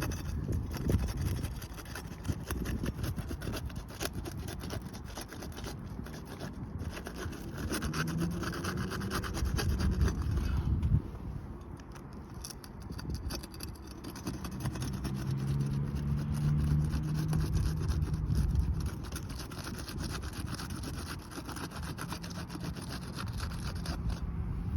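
Repeated scraping and rubbing as roof shingles are worked loose from their seals, over wind rumbling on the microphone. A low hum comes and goes twice.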